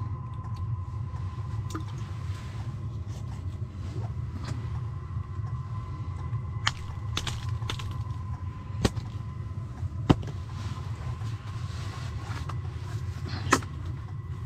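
Handling sounds of ice-fishing gear and a caught whitefish: scattered sharp clicks and light knocks, the loudest about ten seconds in, over a steady low rumble and a faint steady whine inside the tent.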